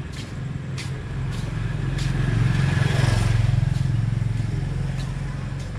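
A motor vehicle passing close by on the street, its engine hum growing louder to a peak about three seconds in, then fading away.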